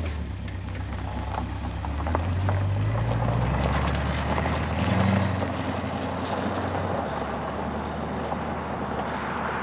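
Chevrolet 327 small-block V8 in a 1965 Impala SS, running. It starts abruptly, rises in pitch over the first few seconds, revs briefly about five seconds in, then settles to a steady idle.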